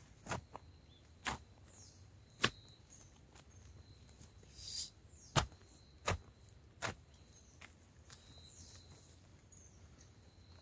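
Feet treading soil firm around a newly planted sapling: a series of irregular thuds, about seven in all. Insects keep up a faint steady high whine behind them.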